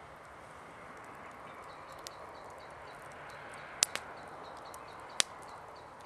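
Wood fire in an open fire pit crackling, with a few sharp pops about two, four and five seconds in over a faint steady background noise.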